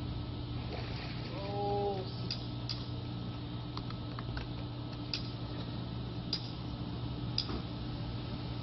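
Rubber bands snapping one at a time against a watermelon's rind as they are stretched on, a sharp snap every second or two, over a steady low hum.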